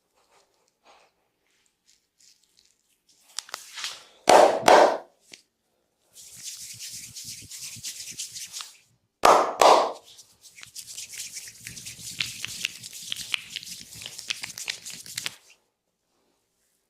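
Hands at work in a massage: two loud double slaps, then long stretches of brisk, scratchy rubbing.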